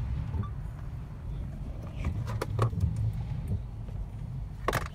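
Car driving slowly, a steady low rumble heard inside the cabin, with a few sharp taps about two seconds in and a louder one near the end.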